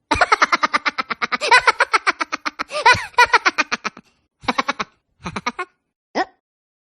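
High-pitched cartoon laughter of a Minion: a rapid run of quick 'ha' pulses for about four seconds, then three short bursts of giggling.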